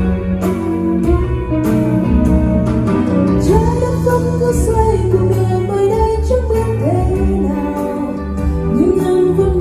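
A song with guitar, deep bass and a steady beat, played through 4-Acoustic PCS-115Q full-range speakers with a PCS-118BQ subwoofer; a singing voice comes in a few seconds in.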